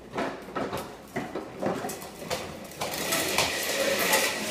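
Plastic wheels of a push-along ride-on toy car rattling over an elevator door track and tile floor, making a string of irregular clicks and knocks.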